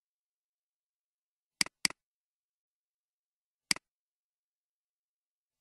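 Computer mouse button clicks, each a sharp press and release. There is a quick double-click about one and a half seconds in, then single clicks about two seconds apart.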